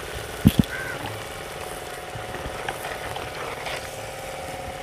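A steady motor hum with a few pitched lines, and two dull knocks about half a second in.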